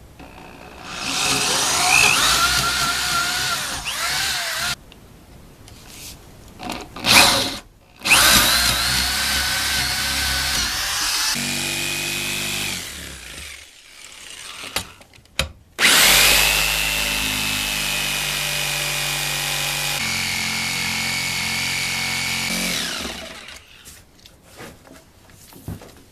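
Power drill running in wood in three long bursts, its motor whine climbing as each starts and dropping in pitch under load, with a few short blips in between.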